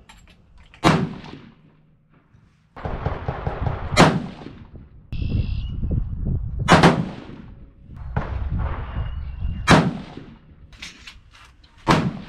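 Five rifle shots from a Christensen Arms MPR chambered in 6.5 PRC, fired about three seconds apart, each a sharp crack that dies away quickly. They are a five-shot group of light, low-pressure loads.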